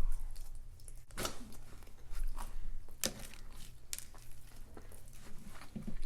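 Close-up eating sounds: chewing with a few sharp crunchy bites, the clearest about a second in and about three seconds in.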